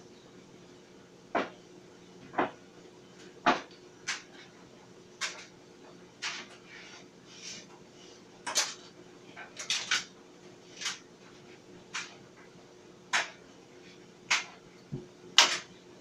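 Clothes dryer running: a steady hum under irregular sharp clicks and clanks, about one a second, of something hard knocking inside the turning drum.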